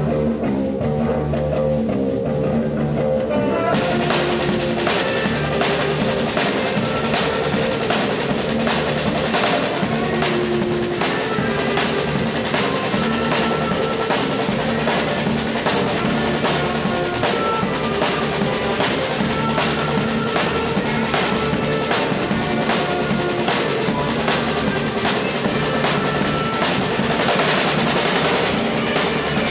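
Rock band playing live: electric guitars and bass, with the drum kit coming in about four seconds in and keeping a steady beat with cymbals.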